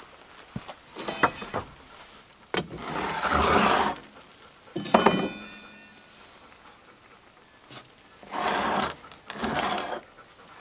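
Work sounds at a clay earthen oven as a cast-iron pot is taken out: a few light knocks, a sharp metal clank with a brief ring about five seconds in, and two short rough scrapes near the end as the pot is slid out across the oven floor.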